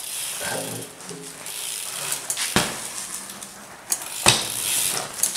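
BMX bike ridden on a concrete floor: tyres rolling, with two sharp knocks from the bike about two and a half and four seconds in.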